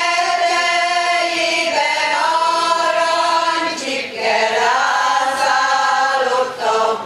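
Women's choir singing a cappella: long held notes that move in pitch, with a short break for breath about four seconds in.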